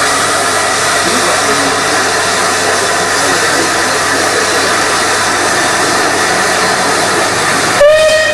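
A steady rushing noise, then a steam locomotive's whistle sounds loudly near the end, rising briefly in pitch as it starts.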